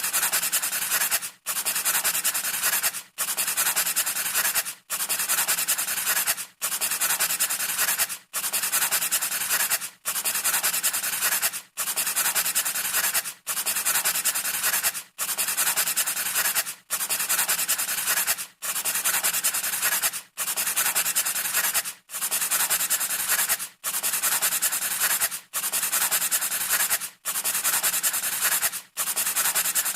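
Scratchy rubbing noise, like sanding, in long even strokes of about a second and a half, each broken off by a brief gap at a perfectly regular spacing.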